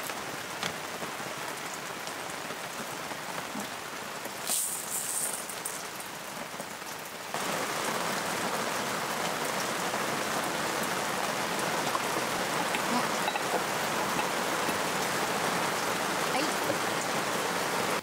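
Heavy rain falling steadily, stepping up in level about seven seconds in, with a brief rustle about four and a half seconds in.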